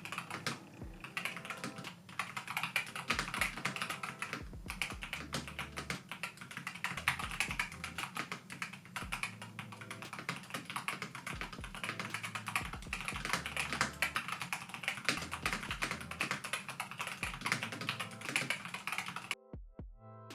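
Continuous fast typing on a Keychron K4 HE hall-effect keyboard with Keychron Nebula magnetic switches and double-shot PBT keycaps: a rapid, unbroken patter of key clicks that stops abruptly about a second before the end.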